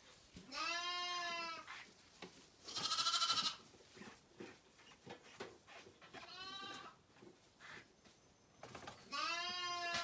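Zwartbles lambs bleating: four separate calls of about a second each, the second the loudest and highest.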